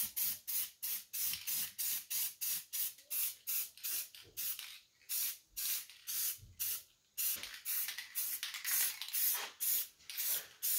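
Aerosol can of Krylon ColorMaxx satin black spray paint spraying in quick short bursts, about three a second, with brief pauses about halfway through and again a little later. It is laying a light second coat.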